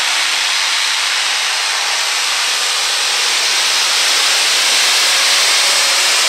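Multi-engine supercharged modified pulling tractor under full throttle as it drags the weight-transfer sled down the track: a loud, steady roar that grows a little louder about halfway through.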